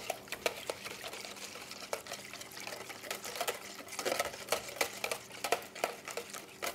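Wire whisk beating fresh yeast into warm water in a plastic bowl, dissolving the yeast: quick, uneven clicks of the wires against the bowl with light sloshing of the liquid.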